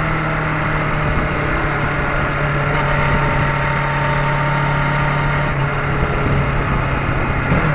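Kawasaki Ninja 650's parallel-twin engine running at a steady, nearly unchanging pitch while riding at speed.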